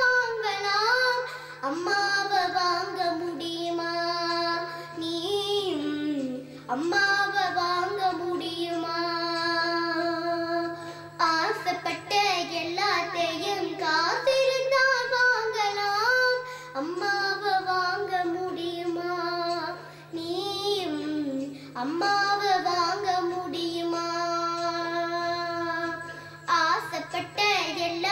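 A girl singing a Tamil song into a handheld microphone, in long held lines with vibrato and short breaks for breath between phrases, over a steady low hum.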